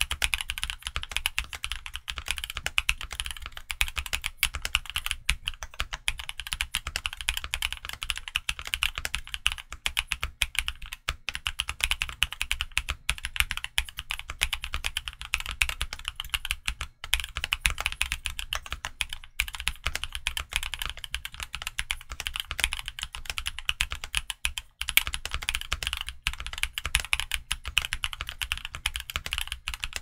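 Fast, continuous typing on a Portico 68 Black Label mechanical keyboard fitted with KPRepublic Black Cherry Pie (BCP) linear Franken switches and Domikey Snake Chaser keycaps: a dense run of key presses with only a few brief breaks.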